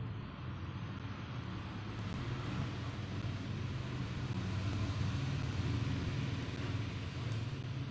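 Steady low rumble of background noise, swelling slightly in the middle.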